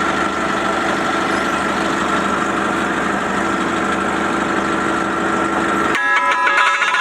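Forklift engine idling steadily. About six seconds in, a short ringing, clanking sound.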